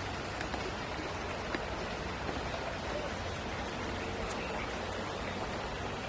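Steady, even outdoor hiss with a few faint ticks, with no voice.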